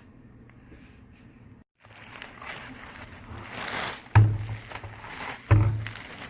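Handling of the scale's packaging: rustling that swells about halfway through, then two dull thumps a little over a second apart.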